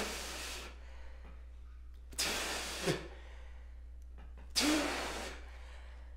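A man's loud, breathy exhalations, three huffs about two and a half seconds apart, the first with a little voice in it, as he blows into an imaginary wind instrument.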